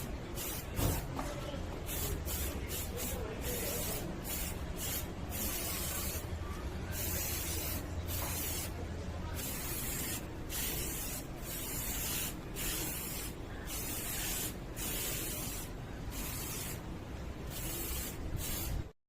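Spray paint hissing in many short, uneven bursts onto a bicycle frame, cutting off suddenly near the end.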